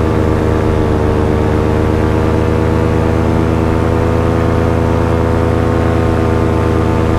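Engine and propeller of a small powered aircraft running steadily in flight, an even drone with a slight rise in pitch about a second in.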